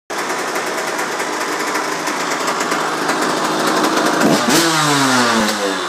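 A KTM 85 SX's small two-stroke single-cylinder engine running at a fast idle. About four seconds in it is blipped once and the revs slide slowly back down.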